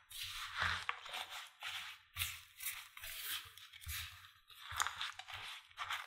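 Silicone spatula mixing and mashing sweet potato, oats and cornstarch in a ceramic bowl: repeated scraping, squishing strokes against the bowl, about two a second.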